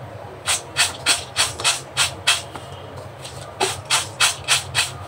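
Roasted peanut halves shaken back and forth in a steel bowl: a rhythmic rattling swish about three times a second, in two runs with a pause of about a second between.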